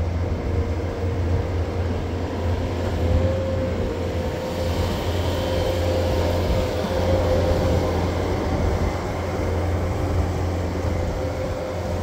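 Bobcat skid steer's diesel engine running steadily under load with a steady whine over it. It grows a little louder and hissier in the middle as the machine comes close, pushing snow with its bucket.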